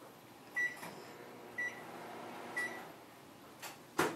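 An electronic beeper giving short, high single beeps about once a second, three times, followed by a sharp click near the end.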